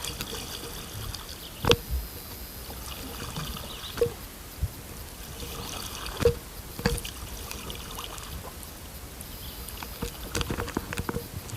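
Kayak on the water: water trickling and dripping, broken by several sharp, hollow knocks against the kayak hull with a brief ring.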